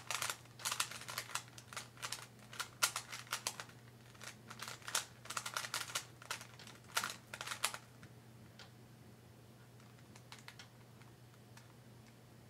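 Rubik's Cube being scrambled by hand: rapid plastic clicking and clacking as its layers are twisted, in quick clusters for about eight seconds, then only a few faint clicks.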